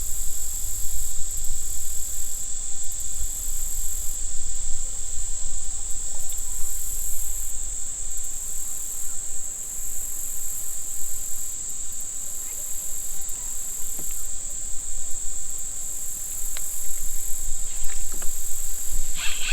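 Chorus of insects: a steady shrill high tone, with a still higher pulsing buzz that comes and goes about once a second and fades out about halfway through, over a low rumble.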